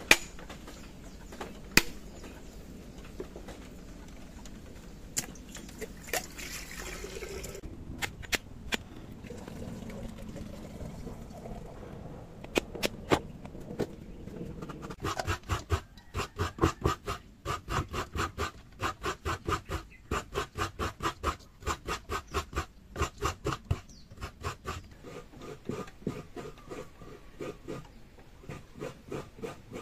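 A blade strikes a coconut sharply twice to crack it open, followed by a few lighter knocks. About halfway through, coconut flesh is scraped on a bench-mounted coconut grater: fast rhythmic scraping, about three strokes a second, that thins out near the end.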